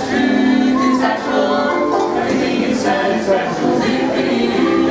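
Male barbershop quartet singing a cappella in close harmony, held chords changing every second or so.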